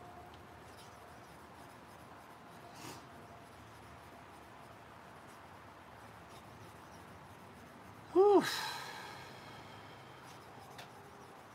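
A short sigh-like voiced sound about eight seconds in, its pitch rising then falling, trailing off in a breathy hiss. Otherwise only faint soft handling noise.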